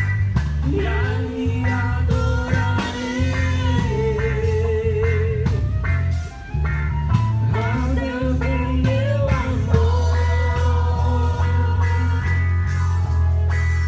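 Music with a heavy bass line and a wavering lead melody.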